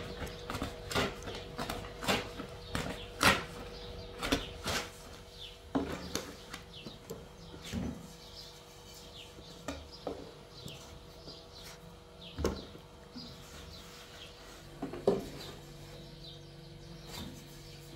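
Thin wooden rolling pin knocking and clacking against a wooden board as flatbread dough is rolled out. The knocks are irregular and sharp, coming thick and fast for the first several seconds, then fewer and farther apart.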